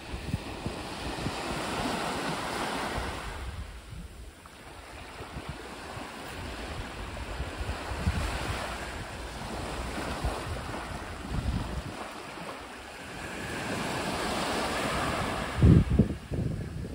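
Small waves breaking and washing up on a pebble beach, swelling and fading every few seconds. Wind buffets the microphone, with a loud low thump near the end.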